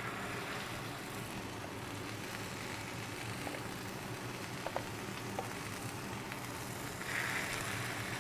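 Raw chicken breasts sizzling in melted butter on a hot flat-top griddle: a steady sizzle with a few faint clicks. The sizzle grows louder about seven seconds in as a second breast is laid down.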